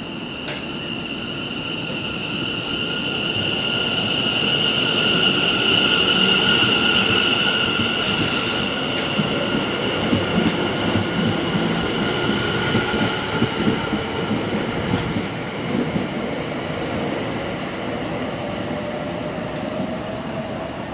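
A train running through the station, its wheels squealing on the rails in a long steady high-pitched tone that is loudest a few seconds in and slowly fades, over the rumble of the wheels, with scattered clicks later on.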